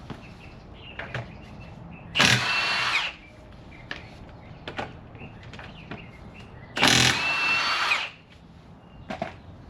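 Impact wrench with a 22 mm impact socket spinning off wheel lug nuts. It runs in two bursts of about a second each, the whine falling in pitch during each burst.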